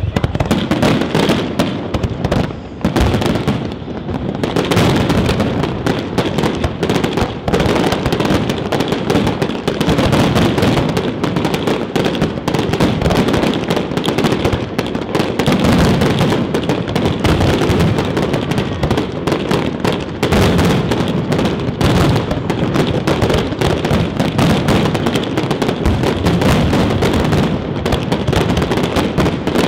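Fireworks display at full pace: shells and effects bursting in rapid succession, many sharp bangs and crackles a second with no pause.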